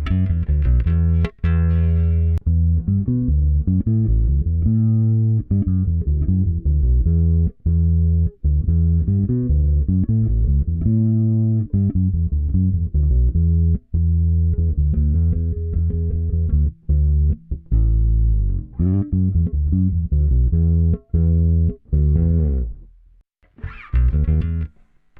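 Yamaha Pulser Bass 400 electric bass guitar played solo: a continuous line of plucked low notes, some held for a second or more, with a brief pause about two seconds before the end.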